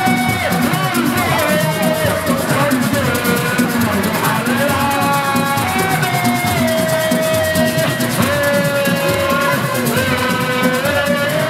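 Music: a held, gliding melodic line over busy, fast percussion with shakers.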